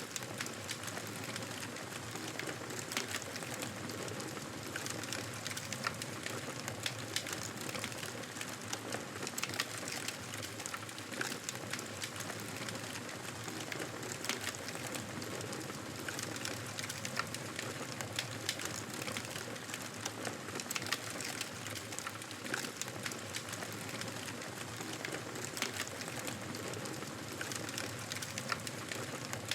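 Wood fire crackling in a fireplace: a dense, steady stream of small pops and snaps over a soft hiss.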